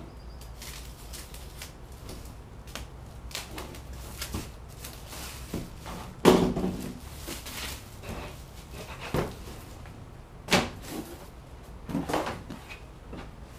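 Carpet offcuts and a thin plywood sheet handled and set down on a folding table: scattered knocks and thumps, the loudest about six seconds in.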